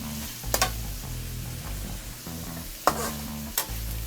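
Vegetables sizzling as they sauté in a pan, stirred with a utensil that clicks sharply against the pan three times.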